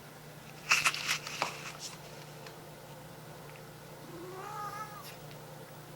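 A cat gives a short squeaky yawn-meow about four seconds in, its pitch rising and then wavering. Earlier, about a second in, there is a quick cluster of sharp clicks and rustles, the loudest sound.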